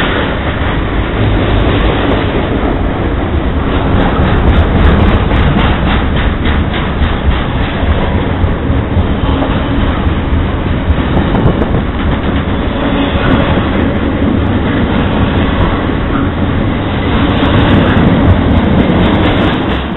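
Double-stack intermodal container freight train passing at close range: a loud, steady rumble and rattle of wheels and cars on the rails, with a stretch of rapid clicking from the wheels a few seconds in.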